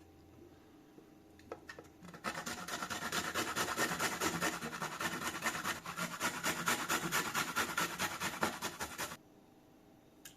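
Fast, even rasping strokes, like food being scraped or grated by hand, starting about two seconds in after a few light clicks and stopping abruptly about two seconds from the end.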